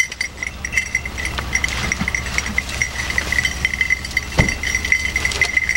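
A steady low engine hum with a rapid, high metallic jingling over it, and a single knock partway through; the hum stops near the end.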